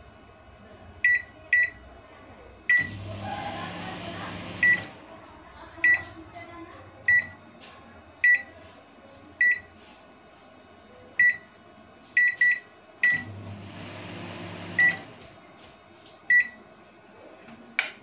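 LG microwave oven's touch panel beeping as its keys are pressed one after another, about fifteen short high beeps, showing that the newly fitted membrane keys respond. Twice the oven starts and runs for about two seconds with a low hum, then stops with a beep.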